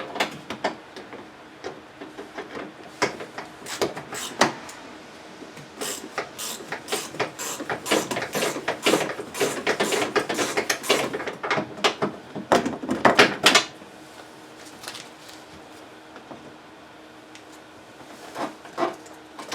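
Pliers and metal parts clicking, knocking and scraping inside a GMC Yukon's door shell as the outer door handle's fastener is worked loose. The clicks come in irregular runs that are densest in the middle, stop for a few seconds, and then return briefly near the end.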